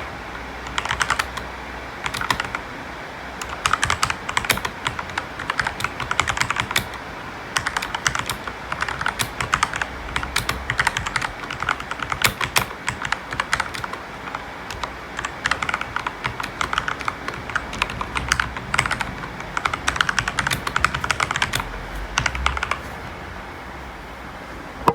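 Typing on a mechanical keyboard with lubed Outemu Red linear switches and O-ring dampeners: fast runs of keystrokes with short pauses between bursts, stopping near the end.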